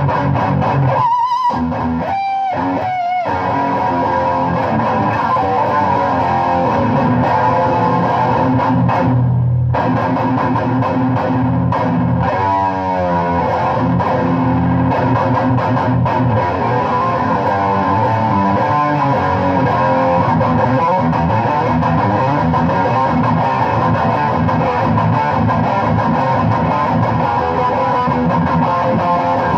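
Distorted electric guitar playing heavy chugging riffs. It has a few abrupt stops in the first few seconds, a short break near ten seconds, and a wavering bent note just after.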